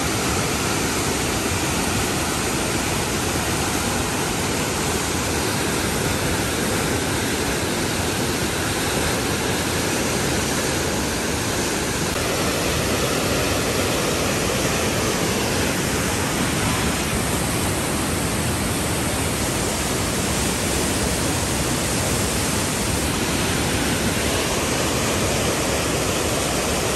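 River rapids rushing and churning through a narrow rock canyon: a steady, loud wash of whitewater noise.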